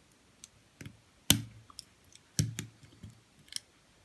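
Lock pick and tension wrench working the pin stack of a Kasp 14040 padlock during single-pin picking: a handful of sharp clicks and taps, two louder than the rest about a second and two and a half seconds in.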